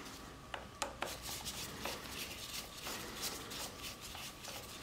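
Faint handling sounds: a few light clicks and rubbing as gloved hands work a small screwdriver on the Kawasaki Ninja 500's twin carburetor bank.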